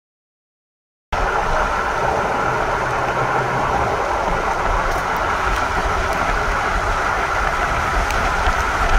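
Steady road and wind noise of a vehicle driving at highway speed, heard from inside the cabin, cutting in abruptly about a second in.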